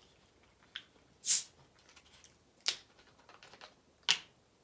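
A plastic soda bottle's cap being twisted open in stages: a faint click, then three short hisses of escaping carbonation, about a second and a half apart, the first the loudest.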